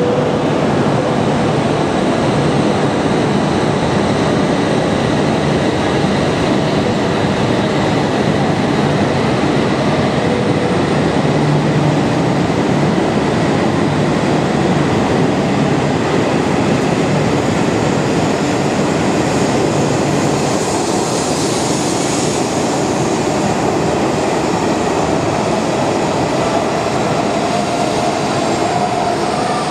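Tohoku Shinkansen train moving along the station platform, a loud, steady rush of wheel and air noise. A high hiss comes in about twenty seconds in, and the sound eases slightly near the end.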